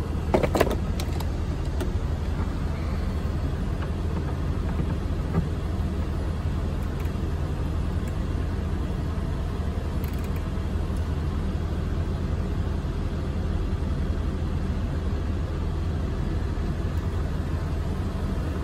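Steady low mechanical drone, like an idling motor, with a few sharp metal clicks of a ratchet being handled about half a second in.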